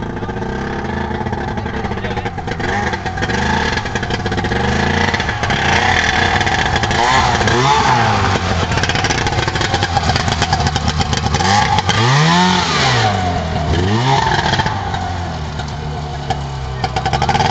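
Golf cart fitted with a snowmobile engine, running and revving as it is driven: the engine pitch climbs and drops several times, with one big rev up and back down about twelve seconds in. It grows louder as the cart comes closer.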